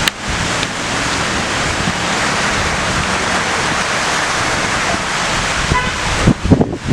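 Rain and wind making a steady, loud hiss; about six seconds in, gusts start buffeting the microphone with uneven low thumps.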